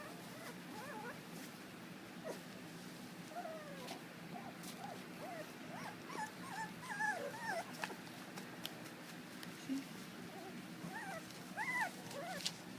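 Young Lagotto Romagnolo puppies whimpering, with many short, high squeaks that bend up and down, thickest in the middle and again near the end, over a low steady hum.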